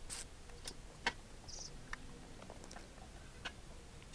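Faint, scattered clicks and light taps of small metal engine parts being handled during engine reassembly, a few isolated ticks over a quiet room.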